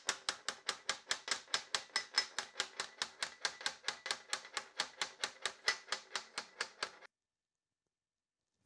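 Rapid, even hammer taps on sheet metal, about five a second, each with a short metallic ring, while forming a flange on a hand-made engine cooling tin. They stop abruptly about seven seconds in.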